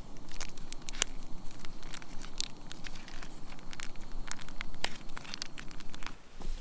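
Foil pouch of cheese sauce crinkling and crackling as it is squeezed out by hand over macaroni, in many short, irregular snaps.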